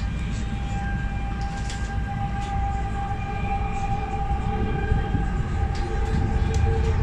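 A Guangzhou Metro Line 6 linear-induction-motor train running, heard from inside the car: a low rumble under steady electric whine tones. A second, lower whine joins about five seconds in, and the sound grows a little louder near the end.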